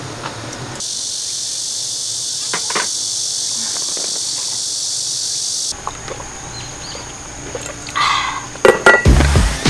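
Steady, high-pitched chorus of insects that starts and cuts off abruptly. Near the end come a few clicks and knocks of objects being handled, and music begins just before the close.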